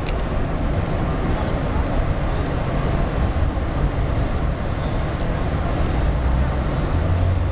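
Steady city din: road traffic rumble mixed with indistinct voices.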